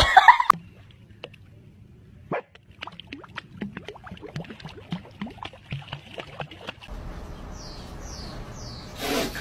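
Dog splashing in a pool: a quick irregular run of small splashes and slaps on the water. Later a steady hiss comes in with three short, high, falling chirps, and a louder sound starts just before the end.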